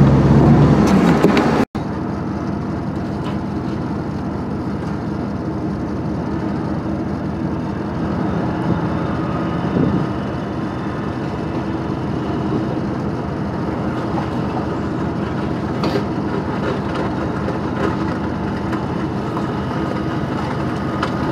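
Pickup truck engine idling steadily, heard from inside the cab. A louder stretch in the first second and a half cuts off abruptly before the steady idle.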